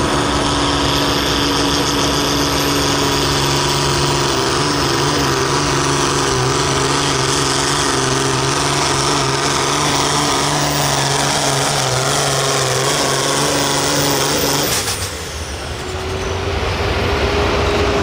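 Pulling tractor's engine running hard at full throttle under load as it drags the weight-transfer sled, at a steady pitch. About fifteen seconds in, the full-throttle sound cuts off and drops back, then a softer engine sound with a slowly rising whine follows as the pull ends.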